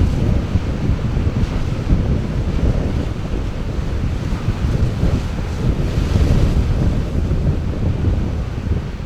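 Sea surf washing in with strong wind buffeting the microphone, a continuous noise that swells slightly around the start and again about six seconds in.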